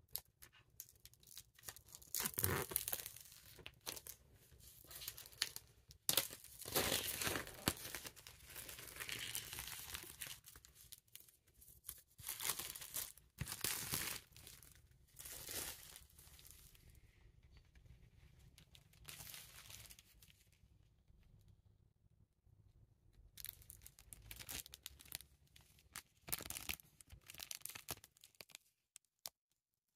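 Plastic shrink wrap on a vinyl LP sleeve being torn open and peeled off by hand, crinkling in a series of separate bursts with short pauses between.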